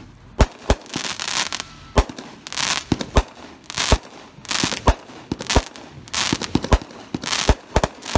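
16-shot consumer firework cake (Shotgun Fireworks Rowdy Rampage) firing shot after shot: sharp bangs about once a second as the flaming balls launch and burst. Several shots are followed by a short spray of crackling from crackling-star breaks.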